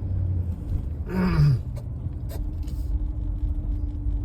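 Steady low rumble of a truck driving, heard from inside the cab. About a second in comes a brief, louder groan-like sound that falls in pitch, and a steady low hum joins the rumble about halfway through.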